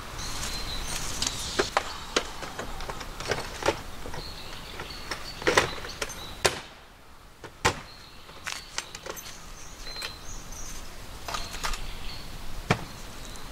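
Irregular knocks and clunks of gear being packed into a minivan and its rooftop cargo box, the loudest in a cluster about halfway through, with birds chirping.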